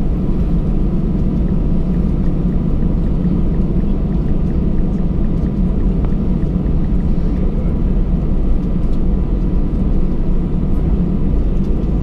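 Cabin noise of an Airbus A319-111 taxiing after landing: its CFM56 engines running at idle as a steady low rumble, with a faint steady whine on top.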